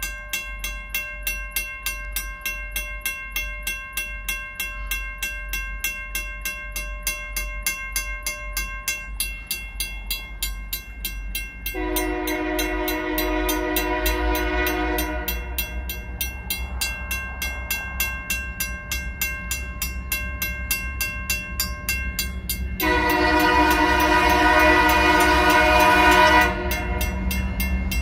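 A WCH mechanical crossing bell ringing in rapid, even strikes. Over it, the approaching Dakota and Iowa Railroad locomotive's air horn sounds two long blasts, about 12 seconds in and again about 23 seconds in, its crossing warning, while the low rumble of the diesel locomotives grows.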